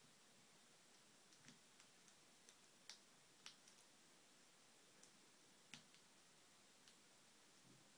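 Faint, irregular small metal clicks of a lock pick working the pin stacks of an American Lock 1100-series padlock during single pin picking, a dozen or so spread out with a quick run of three about halfway through.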